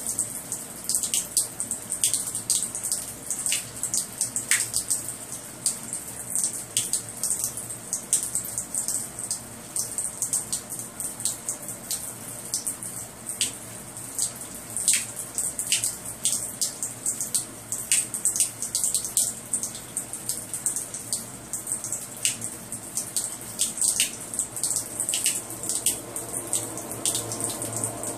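Water running and dripping in a tiled bathroom: a steady high hiss with irregular sharp drips or taps several times a second.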